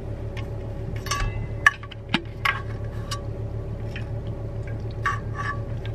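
Swallowing pills with water: clicks and knocks of a plastic pill bottle and a water bottle being handled, and soft liquid sounds of drinking. The sharpest click comes about one and a half seconds in. A steady low hum of the car runs underneath.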